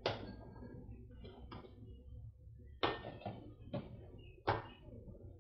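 Wooden spoon knocking against a stainless steel pot while vegetables are stirred: one sharp knock right at the start, then a cluster of four knocks about three to four and a half seconds in, over a low steady hum.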